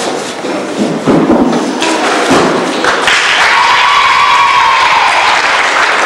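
Sports-hall noise at a gymnastics competition: two dull thuds about one and two seconds in, then a steady, louder hubbub of the hall from about three seconds in, with a faint held tone.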